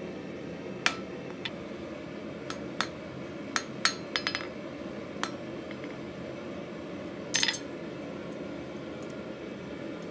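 Irregular sharp metal clinks of a hammer and tongs on a steel anvil, about a dozen light strikes and knocks with short ringing tails, not steady forging blows. A steady low roar runs underneath.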